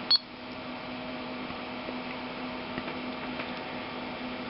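A short, high electronic beep from the camcorder's button press just after the start, then a steady low hum.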